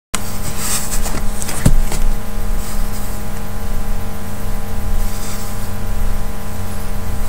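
Loud, steady electrical buzzing hum over a low rumble, with a few knocks, the strongest about a second and a half in, as the webcam is handled and moved.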